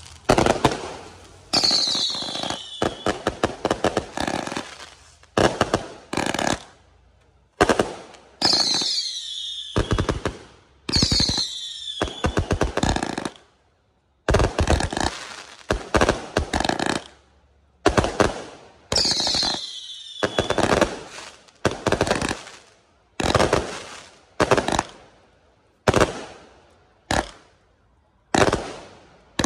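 A 398-shot assorted repeater firework cake firing: volleys of launch thumps and sharp aerial bursts, with rapid crackling strings of reports and several falling whistles, in rhythmic groups every second or two.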